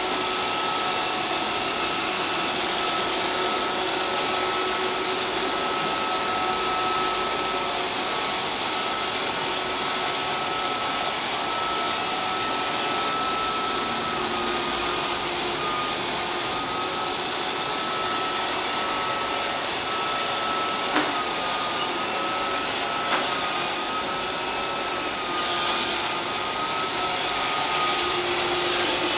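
Steady rushing-air noise with a high, slightly wavering whine, like a small electric motor blowing or drawing air. Two faint clicks about two seconds apart come roughly two-thirds of the way through.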